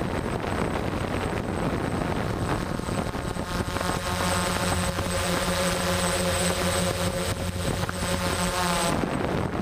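DJI hexacopter drone's propellers and motors buzzing in flight, with a rushing noise and a thin high whine. About three seconds in, a steadier hum with several pitched layers comes up, and it cuts off sharply near the end.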